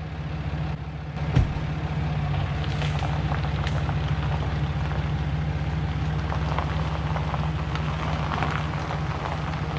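Pickup truck engine running steadily at low speed as the truck creeps forward over gravel, with a light crackle of gravel under the tyres. One short knock about a second and a half in.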